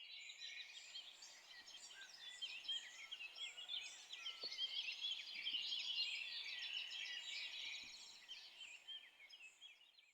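Many small birds chirping and twittering at once, their short calls overlapping densely; the chorus swells towards the middle and dies away near the end.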